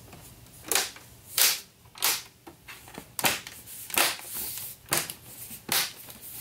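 Plastic snap clips of a flat-panel monitor's casing clicking into place as the edges are pressed down by hand: a series of sharp snaps, about one every half to one second.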